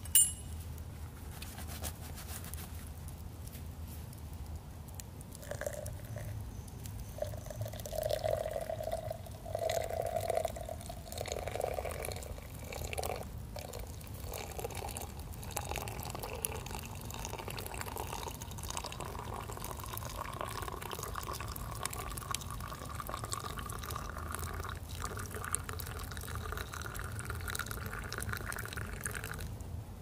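Liquid poured steadily into a container, its pitch rising slowly as the vessel fills; a sharp click right at the start.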